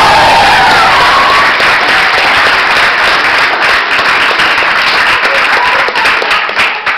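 Audience applause and cheering, with high wavering ululation (zaghareet) from the dancers in the first second or so. The applause fades and thins to scattered claps near the end.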